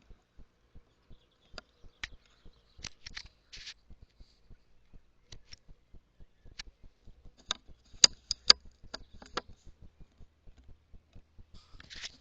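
A series of faint, sharp clicks and taps, irregular, with a brighter cluster of several close together about eight seconds in.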